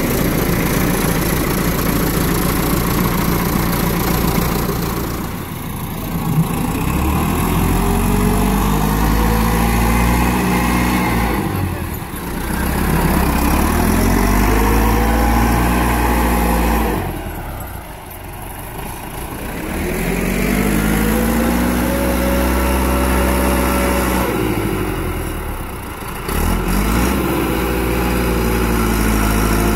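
Massey Ferguson tractor's diesel engine under load, revving up and easing off in repeated cycles as it shifts straw with a rear blade: the engine note rises and falls about four times, with short lulls in between.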